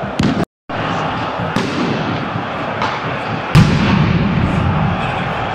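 Football stadium crowd noise during a flare show, broken by several sharp bangs of firecrackers, the loudest about three and a half seconds in. The sound cuts out for a moment near the start.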